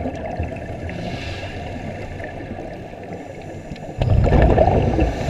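Muffled underwater noise heard through a GoPro's waterproof housing: a steady low rush, then about four seconds in a sudden, louder gurgling burst of scuba regulator exhaust bubbles.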